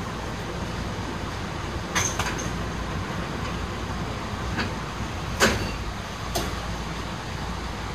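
Tokyu 8500 series electric train car standing at a station: a steady hum from the car with a few sharp knocks and clunks, the loudest about five and a half seconds in.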